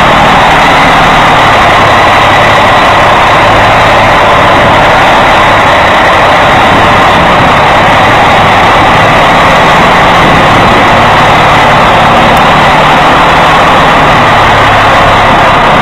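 Scania 113 truck's 11-litre straight-six diesel running steadily at low revs as the truck creeps through a tight turn with a loaded semi-trailer. Loud and unchanging.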